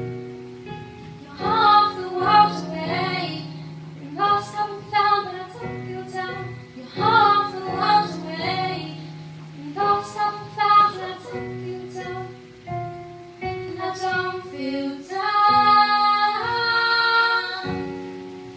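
Live solo singing with piano accompaniment, sung phrases over sustained piano chords, heard from the audience with hall reverberation.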